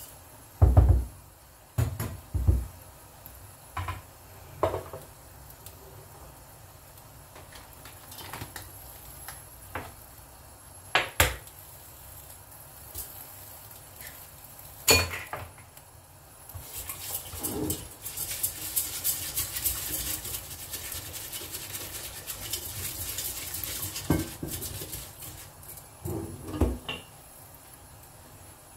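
Kitchen clinks and knocks: a spatula scraping and tapping a glass bowl over an enamel pot, with scattered sharp knocks of dishes. The loudest knock comes about a second in. In the second half there is a steady rustling hiss lasting about seven seconds.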